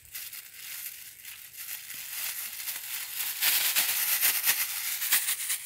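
Thin plastic bag crinkling and rustling as it is handled and pulled open, louder from about three and a half seconds in.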